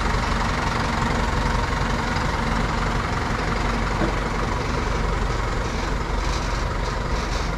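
Wheel loader's diesel engine running steadily while the machine manoeuvres with its bucket raised.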